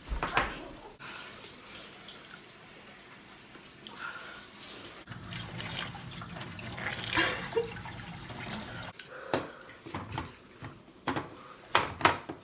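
Kitchen tap running into a stainless-steel sink, a steady splashing of water as a man cups it in his hand to rinse his mouth. Near the end come several short, sharp sounds.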